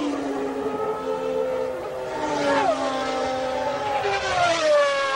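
1991 Formula 1 car engine running at high revs, its pitch falling sharply about two and a half seconds in and again near the end.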